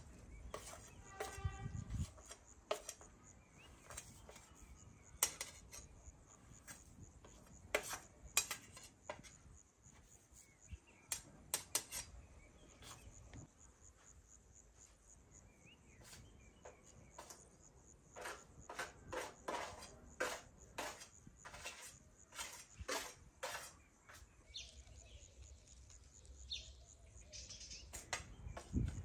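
A metal spoon clinking and scraping against a plate and a stainless steel mixing bowl while spices are tipped in, in scattered, irregular clinks. A short pitched call comes about a second in.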